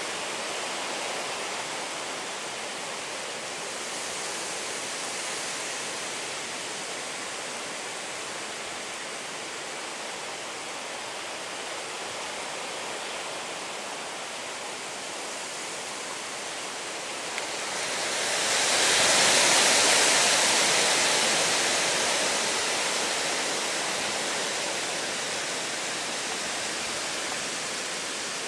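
Storm rain and wind making a steady rushing hiss. About eighteen seconds in, the rush swells much louder, then slowly dies back down.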